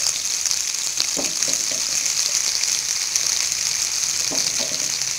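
Freshly added sliced onions sizzling in hot coconut oil in a non-stick pan: a steady hiss flecked with small crackles.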